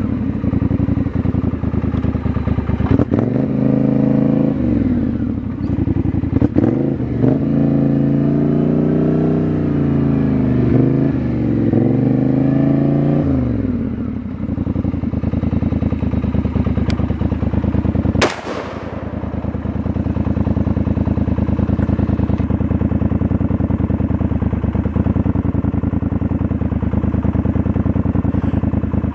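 An engine runs steadily, its pitch rising and falling between about three and thirteen seconds in. About eighteen seconds in comes a single sharp crack from a Noveske N4 5.56 rifle with a 14.5-inch barrel, firing the shot that kills an otter, with a short ringing tail.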